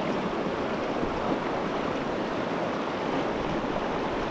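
Steady rush of the Upper Provo River's water running over rocks.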